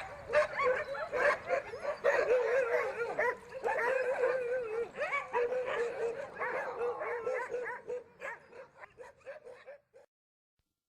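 Many sled dogs vocalising together: overlapping wavering whines and howls from the pack, thinning out and fading near the end.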